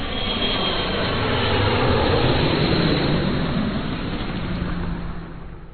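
A steady rushing noise, heard like a jet engine, under the logo intro. It swells slightly in the middle and fades out near the end.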